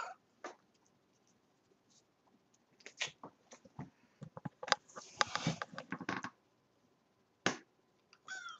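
Scattered light clicks and scratches, with a few seconds of rustling about five seconds in. A domestic cat gives a short meow right at the end.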